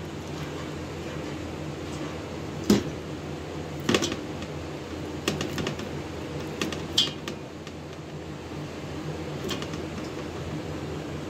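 Pieces of raw mutton on the bone being set into a cooking pot by hand, giving scattered short knocks and clinks of meat, bone and dish against the pot, loudest about three and four seconds in. A steady machine hum runs underneath.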